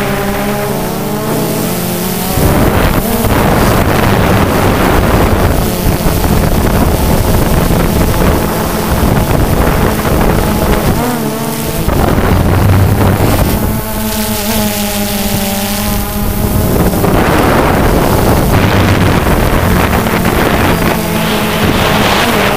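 Quadcopter's electric motors and propellers buzzing right beside the camera, the pitch rising and falling as it manoeuvres, with wind buffeting the microphone now and then.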